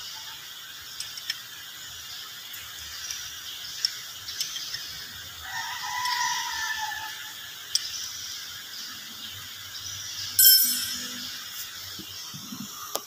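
Scattered small metal clicks and taps of hand tools working on a crane's transmission pump, with one much louder metallic clank about ten and a half seconds in, over a steady workshop hiss. A brief steady tone lasts about a second and a half a little past midway.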